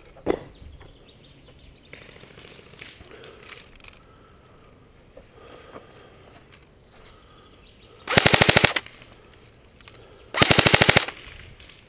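Airsoft G36C electric rifle firing two short full-auto bursts, each a rapid even rattle under a second long, about two seconds apart.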